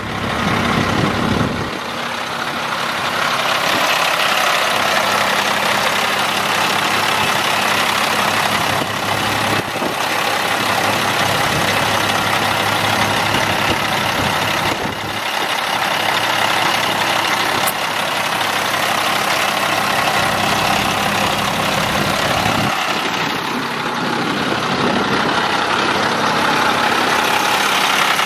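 Diesel engine of a 1996 International flatbed truck idling steadily.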